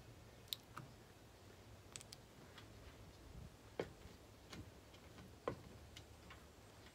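Faint, scattered clicks and light taps, about ten over several seconds, from a plastic uncapping fork lifting wax cappings off a honeycomb frame and being knocked clean against a metal pot.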